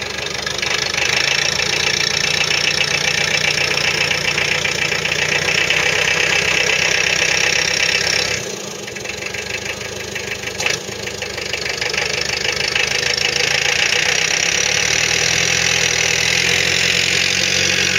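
Engine running steadily, easing off for a couple of seconds about halfway through, then picking up again, with a single sharp click just after the dip.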